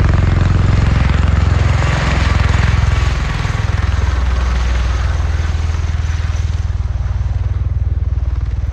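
V-22 Osprey tiltrotor, its twin turboshaft-driven rotors in helicopter mode, hovering low and setting down on the runway: a loud, steady, fast rotor beat with turbine noise, easing a little about three seconds in.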